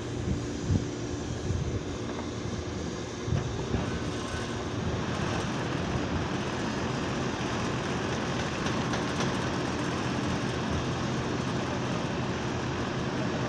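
Split-type air-conditioner compressor running with a steady electrical hum, with a few short knocks in the first few seconds.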